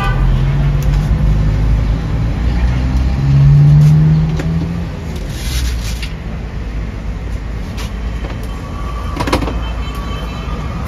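Road traffic: a motor vehicle's engine running close by, with a steady hum that grows loudest about three to four seconds in and then fades, over a low traffic rumble. A single sharp click comes near the end.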